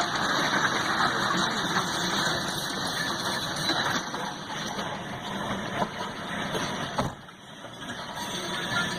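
Freight train of covered hopper cars rolling past a grade crossing, a steady rumble heard from inside a vehicle. About seven seconds in there is a sharp click and the level drops suddenly, then builds again.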